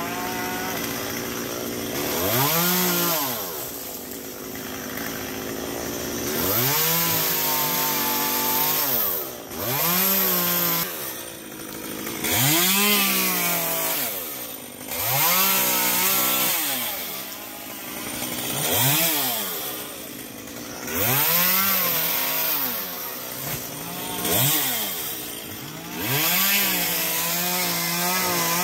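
Chainsaw revved up under throttle and dropping back toward idle about ten times, each rise and fall lasting a second or two, as it cuts through palm fronds.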